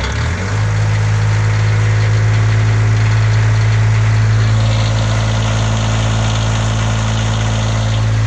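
NiftyLift HR17 boom lift's engine, just fired up, picks up speed in the first half-second and then runs steady at about 2,100 rpm. It is running because the RPM sensor, moved closer to the flywheel, now gives the ECM a speed signal, so the throttle solenoid opens.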